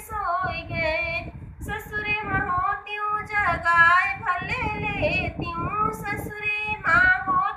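A woman singing a folk dance song (naach geet) in a solo voice, with long, wavering, drawn-out notes that rise and fall.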